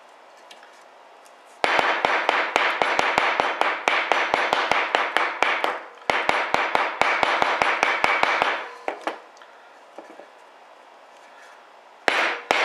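Wooden mallet striking an antique steel hollow punch to cut overshot card wads from a paper plate on a wooden block: two long runs of quick blows, about five a second, with a short break between, and a third run starting near the end. The cutter is a little dull, so it takes many blows to punch through.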